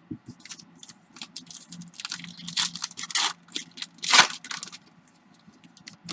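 Foil trading-card pack wrapper being torn open and crinkled, a run of sharp crackles and tears with the loudest rip about four seconds in.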